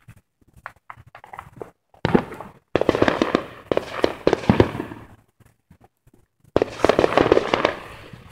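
Fireworks crackling in dense runs of rapid pops, one from about two seconds in to about five seconds, another starting past six seconds and fading near the end.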